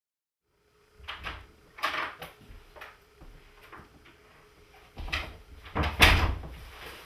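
Silence for about a second, then a series of sharp knocks and thuds, the loudest about six seconds in.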